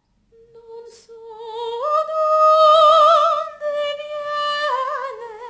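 A soprano singing long, held operatic notes with strong vibrato and no accompaniment. The voice steps up to a higher note about two seconds in, holds it for nearly three seconds, then falls back near the end.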